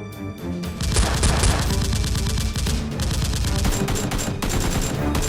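Rapid automatic gunfire in long, continuous bursts, starting about a second in.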